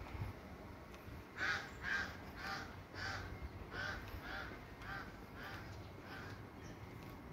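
A bird calling repeatedly: a run of about ten short calls, about two a second, loudest at the start and fading toward the end.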